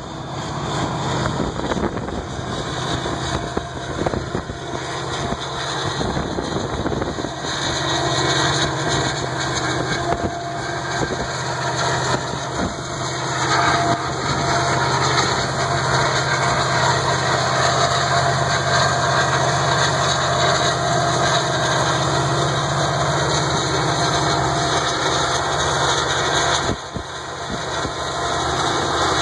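Diesel freight locomotive running steadily as it rolls slowly past, shoving a train of hopper cars: a constant low engine drone over the rumble of the moving train.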